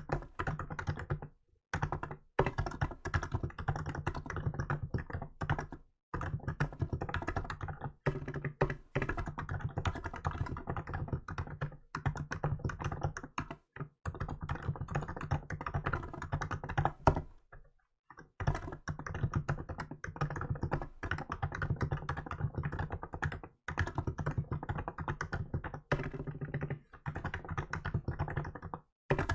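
Continuous typing on a Hansung GK868B electrostatic-capacitive (contactless) keyboard fitted with milk keycaps. The keystrokes come in fast runs, broken by short pauses every few seconds.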